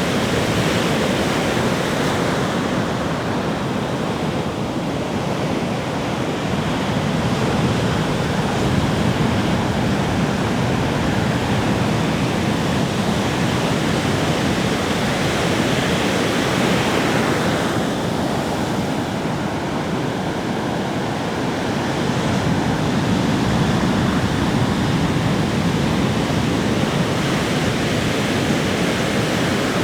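Sea waves breaking on a shore: a continuous wash of surf that swells and eases gently every several seconds.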